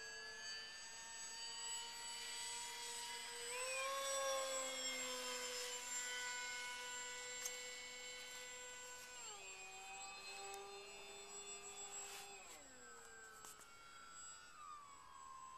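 Distant whine of a radio-controlled model airplane's motor flying overhead. Its pitch rises about four seconds in, then drops in steps in the second half.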